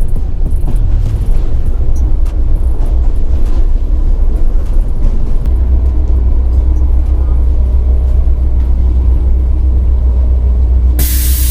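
Heavy wind rumble on an action-camera microphone with rattles and knocks from a mountain bike riding over rough ground. Near the end a loud hiss cuts in suddenly.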